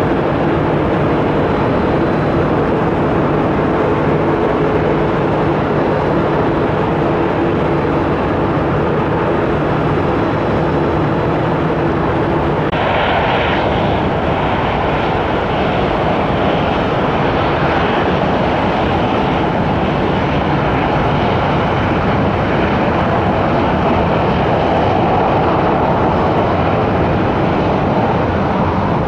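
Jet airliner engines throughout: first a steady hum with a few held low tones from a Boeing 737-800 landing, then, after a sudden change about 13 seconds in, the broader engine noise of a Boeing 757-300 coming in to land, growing a little louder near the end.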